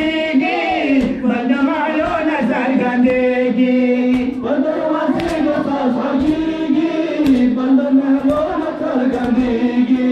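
Men chanting a Muharram noha (mourning lament) together into microphones, with long held, wavering notes. Sharp beats recur now and then under the chant.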